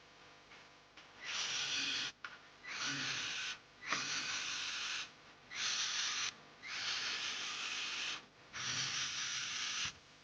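Six short bursts of hissing, each lasting about a second with brief gaps between them.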